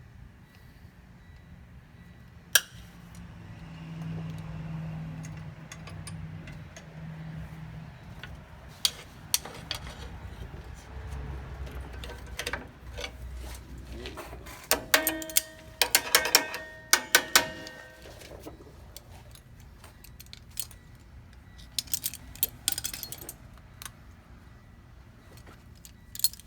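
Steel brake hardware and hand tools clinking and clanking as air-brake shoes and their springs are worked into place. There is a sharp metallic strike a few seconds in, and a run of ringing metal clanks a little past halfway through.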